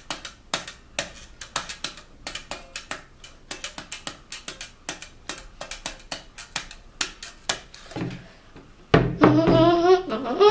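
Rhythmic knocking on a wooden school desk, a steady beat of about three to four sharp taps a second. About nine seconds in, a voice starts humming a tune over it.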